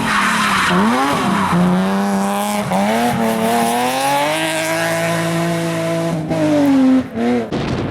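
A rally car's engine pulling hard through the gears: the pitch climbs and drops at each shift, holds high for a few seconds, then falls away and stops near the end, at its loudest just before.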